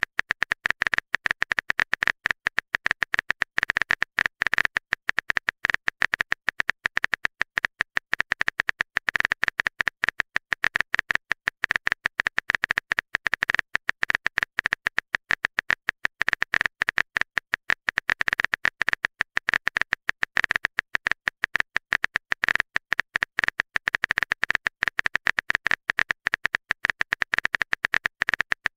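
A rapid, stuttering electronic clicking, many clicks a second, with a high steady tone running through it.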